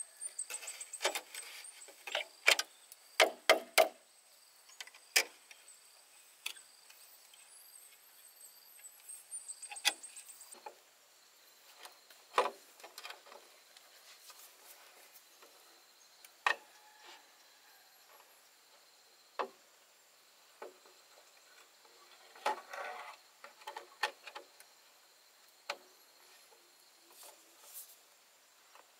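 Bamboo poles knocking and clacking as they are handled, irregularly: a quick run of knocks in the first few seconds, then single knocks every few seconds. A steady high-pitched insect drone runs underneath.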